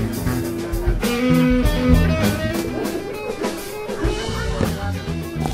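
Rock music with electric guitar over a drum kit beat: an instrumental stretch of a song.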